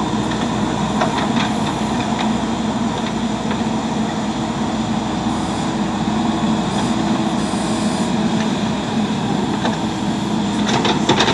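JCB 3DX backhoe loader's diesel engine running steadily while the backhoe arm is swung and lowered, with a few knocks near the end.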